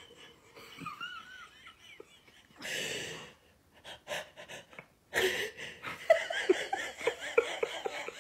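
A person's breathy, wheezing laughter with gasps for breath. It is sparse at first and grows busier and louder about five seconds in.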